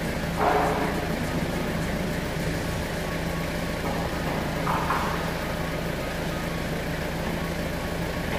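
Styrofoam factory machinery running with a steady hum, with two brief louder bursts about half a second and about five seconds in.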